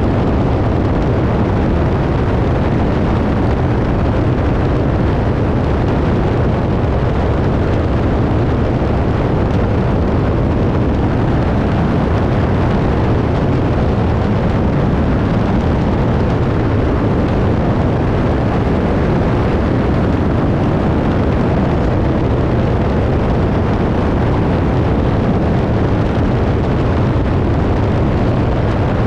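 Biplane in flight, heard from its tail: the engine and propeller running steadily under a loud, even rush of wind.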